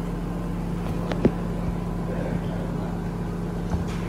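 A steady low mechanical hum, with a sharp click just over a second in and a lighter knock near the end.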